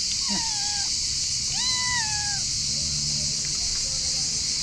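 Calico cat meowing twice, two drawn-out meows that each rise and then slide down in pitch, over a steady high-pitched hiss.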